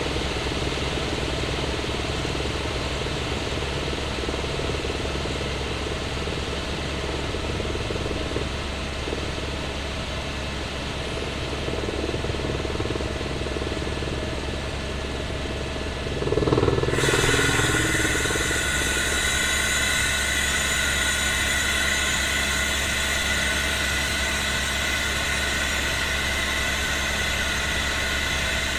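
Helicopter cabin noise heard from the front passenger seat: a steady low rotor drone with engine and airflow noise. About two-thirds of the way in it turns suddenly louder and brighter, with a steady high whine added.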